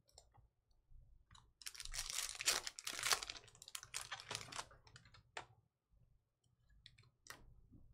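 A foil trading-card pack being torn open and crinkled, busiest about a second and a half to three and a half seconds in, followed by scattered clicks and rustles as the stack of cards is slid out and handled.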